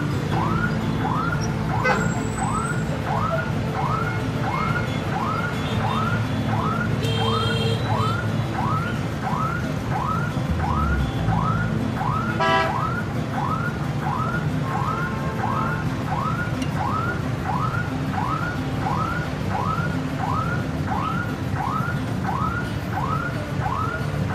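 Electronic siren repeating a short rising whoop about one and a half times a second, at an even level throughout, over steady street traffic.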